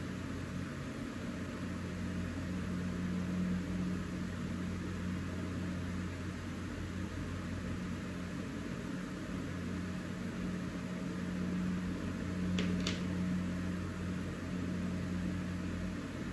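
Steady machine hum, like a fan or air conditioner, with a low drone and a faint hiss over it. Two brief ticks come close together about three-quarters of the way through.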